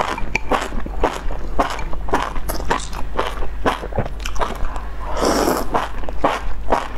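A person eating noodles from a bowl: quick wet chewing and mouth clicks, several a second, with one longer slurp about five seconds in.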